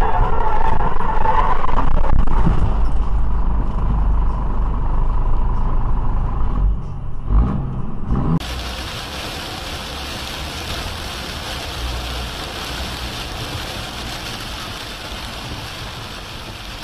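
Low rumble of a truck's engine and road noise heard from the cab, with a few knocks about seven to eight seconds in. Then, after a sudden cut, a steady hiss of rain and tyre spray heard from inside a car.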